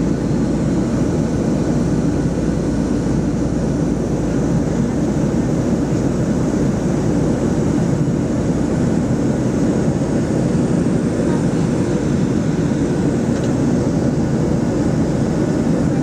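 Steady airliner cabin noise from a passenger seat: the even rumble of the engines and rushing air, unchanging throughout.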